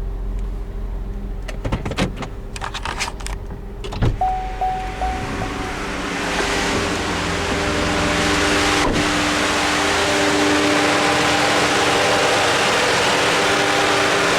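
A few clicks and knocks, then about six seconds in the 2008 Chevrolet Equinox's V6 engine is heard up close, running as a loud, steady noise with a steady whine over it. The owner says the engine has been puttering and places the sound in what he calls the distributor area.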